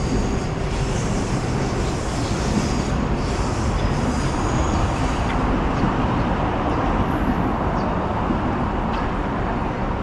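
Steady rumble of a passing train mixed with city street traffic, with faint high thin tones in the first half.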